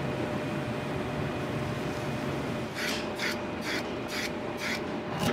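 Steady kitchen machinery noise, a rumble with a faint hum under it. Near the end come five short scratchy strokes, about two a second.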